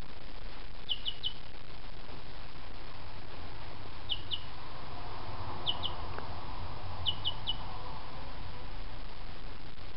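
A week-old chicken chick peeping: short, high, falling peeps in four quick groups of two or three, over a steady hiss.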